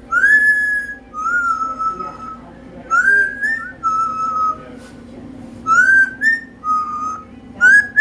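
Amazon parrot whistling a two-note phrase, a quick rising high note then a lower held note. It repeats three times and starts a fourth near the end.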